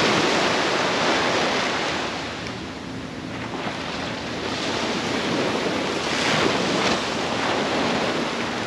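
Surf breaking on the beach, with wind buffeting the microphone. The noise dips for a while about three seconds in, then swells again.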